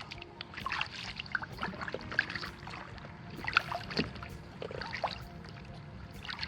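Kayak paddling: the paddle blades dipping into the water and dripping, heard as an irregular run of short splashes and trickles over a low wash of water.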